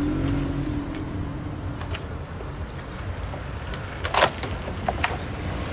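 A car's engine running with a low rumble, with a few sharp knocks. The loudest knock comes about four seconds in.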